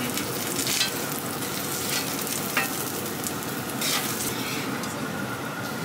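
Oil sizzling steadily on a hot flat-top griddle under birria tacos crisping in freshly added oil. Metal tongs click against the griddle a few times as a taco is turned.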